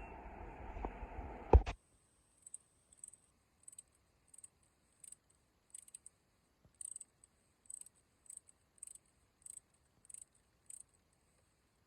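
A steady noisy background ends with a single knock and cuts off abruptly. It is followed by a regular series of faint, sharp, high-pitched clicks, about one every half second or so.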